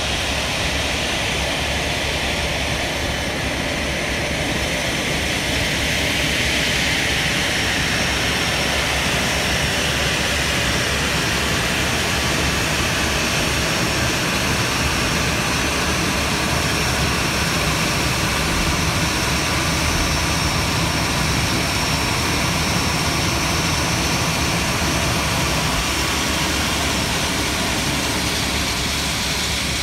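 Airbus A321-211's CFM56 turbofan engines running at taxi idle close by: a steady rush with a high whine over it.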